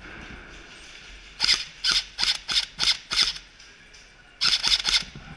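Airsoft gun firing: six sharp single shots at about three a second, then a quick burst of four shots near the end.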